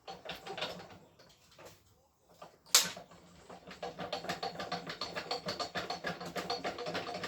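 A sharp knock, then a fast run of mechanical clicking, about ten clicks a second with a faint ringing tone beneath, lasting three to four seconds and stopping abruptly.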